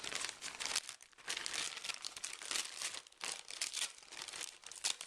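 Close crinkling and rustling of things being handled by hand, in quick irregular bursts, with no steady tone.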